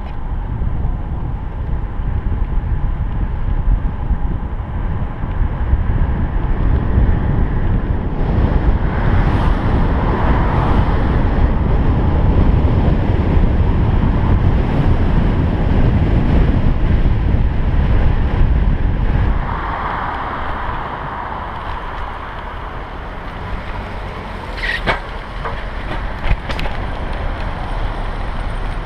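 Wind buffeting a bicycle-mounted camera's microphone during a fast road descent, a loud, steady rush that drops off sharply about two-thirds of the way through to a lower rolling noise. A few sharp clicks come near the end.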